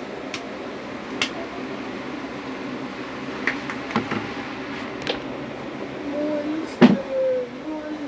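A metal spoon clinking and knocking against a plastic cup several times, with the loudest knock near the end, over a low steady hum. A child's voice makes brief sounds near the end.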